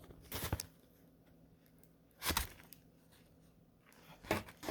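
Plastic packaging being handled, crinkling in three short bursts about two seconds apart.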